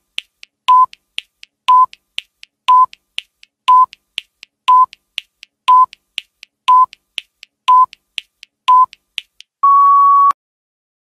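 Countdown timer sound effect: a short electronic beep once a second with quieter ticks between them, ending in one long, slightly higher beep about ten seconds in as the count reaches zero.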